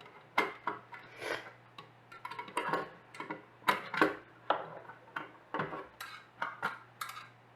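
Irregular light metallic clicks and clinks, a dozen or so, as a floppy drive's metal casing is handled and its cover opened.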